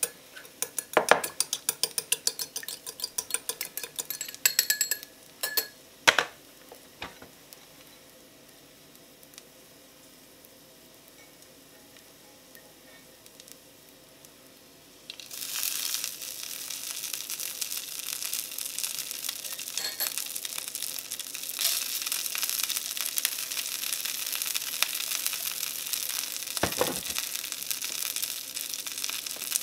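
Chopsticks beating a raw egg in a ceramic bowl, a fast run of clinking taps, then after a quiet stretch a steady sizzle of cooked rice frying in a frying pan, starting suddenly about halfway through.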